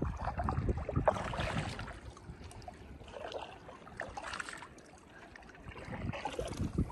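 Paddle strokes and water splashing and lapping around a stand-up paddleboard gliding through shallow water, coming in about three surges.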